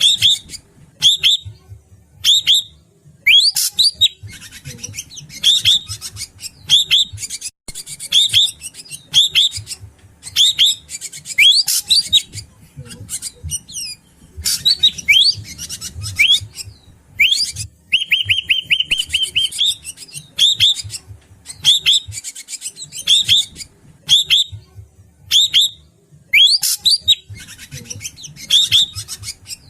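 Greater racket-tailed drongo calling: a steady series of short, sharp whistled notes, about one a second. A rapid rattling trill comes about two-thirds of the way through.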